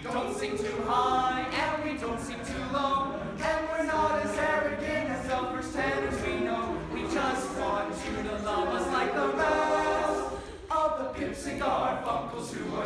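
Male high school choir singing a cappella in several-part harmony, with a short break in the singing about ten seconds in.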